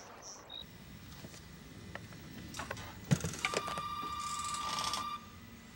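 A few light clicks and a knock, then a steady high electronic tone lasting about two seconds that cuts off abruptly.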